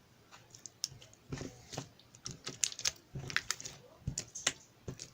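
A run of irregular light clicks and taps, several a second, in the manner of typing on a keyboard.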